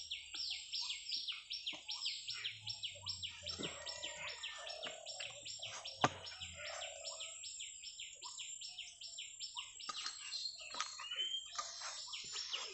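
A bird calling in a rapid, regular series of high, falling chirps, about four a second, that stops about ten seconds in; a single rising whistle follows near the end.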